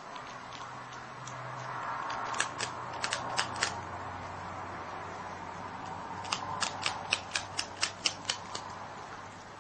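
Marmot gnawing a crisp cracker: two runs of sharp crunching bites, a short run a couple of seconds in and a longer, quicker one of about four crunches a second later on.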